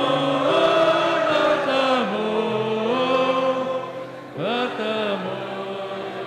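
A group singing a slow Malay farewell hymn together, with long held notes. The singing dips briefly about four seconds in, then picks up again.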